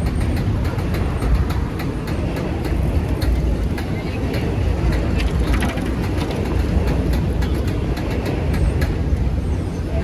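Busy city street ambience: a steady low rumble of traffic with the chatter of passers-by and scattered short clicks.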